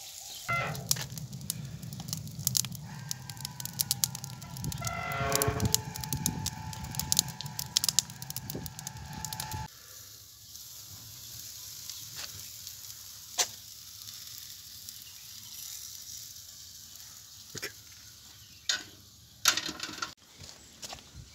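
Hands working wet dough in a metal pot, with many small sticky clicks and squelches and a wavering animal call about five seconds in. Then, after a change, faint crackling from a wood-fired tandoor, broken by a few sharp knocks.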